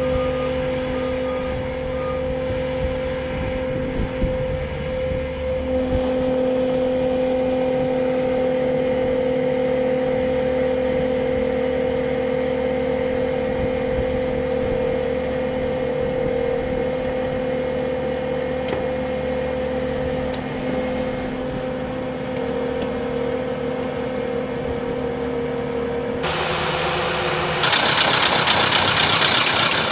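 Heavy machine's engine running steadily under load, with a constant whine held throughout. About 26 seconds in, the sound changes abruptly to a louder rushing, grinding noise.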